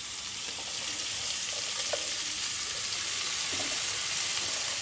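Hot oil sizzling steadily in a frying pan as handfuls of chopped fresh leafy greens are tossed in on top of frying spices, onion, ginger and garlic.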